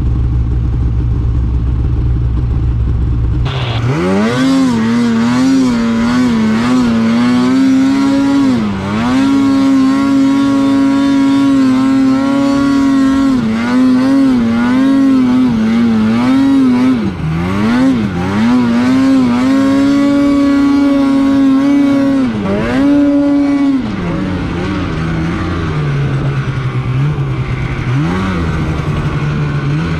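Two-stroke mountain snowmobile engine running low, then revved hard about three and a half seconds in and held at high revs as the sled climbs through deep powder, with a few brief dips in revs. Near the end it falls back to a lower, steady speed.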